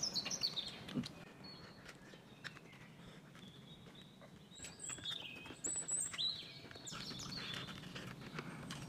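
Chewing and crunching of crispy fried whole fish eaten by hand, as a scatter of small crunches and clicks. Birds chirp in the background near the start and again around five to six seconds in.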